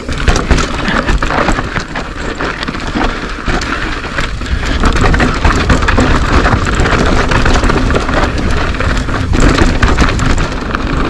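Mountain bike rolling down a dirt trail: tyres crunching over loose dirt and stones, with the bike rattling and clicking over the bumps.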